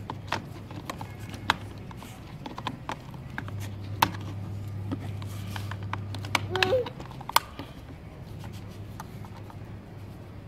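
Small screwdriver clicking and scraping against the plastic screws and chassis of a toy RC car as it is worked on: a string of scattered sharp clicks and taps, a few louder knocks as the car is handled.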